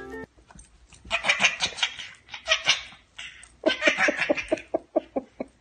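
A baby laughing in high-pitched bursts of giggles, then a run of quick rhythmic laughs in the second half.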